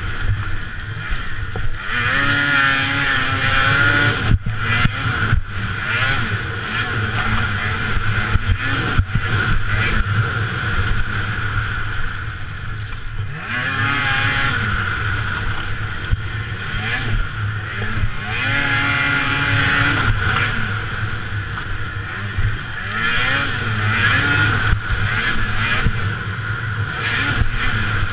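Racing snowmobile's two-stroke engine revving up and dropping back again and again along the track. A few sharp knocks come about four to six seconds in.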